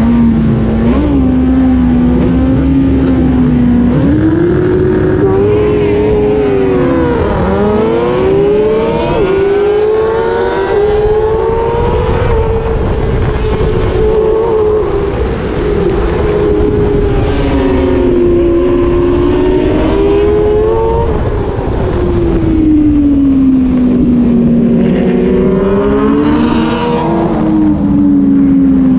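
Kawasaki ZX6R's inline-four engine running hard at racing revs, its pitch climbing and falling again and again, with quick drops and jumps at the gear changes.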